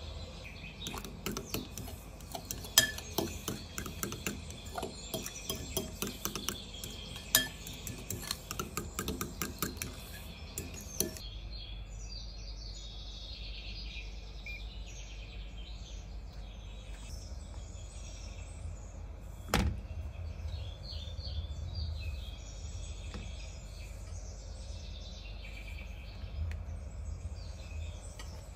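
A metal fork clinks against a glass bowl, with quick runs of clinks as a thick white mixture is stirred. Later comes a faint, uneven sizzle of eggplant slices frying in olive oil in a nonstick pan, with one sharp knock about two-thirds of the way through.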